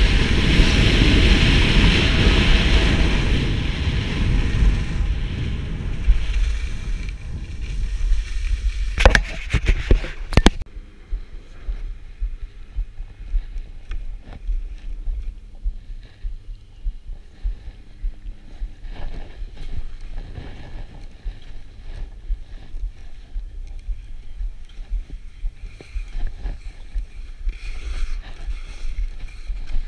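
Wind rushing over an action camera's microphone, with skis hissing over snow at speed. About ten seconds in come two sharp knocks, then the sound drops to a quieter, uneven crunch and scrape of skis on snow.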